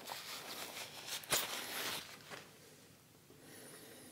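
Knife cutting through a raw aloe vera leaf: a few short cutting strokes in the first two seconds, with a sharp knock about a second and a half in.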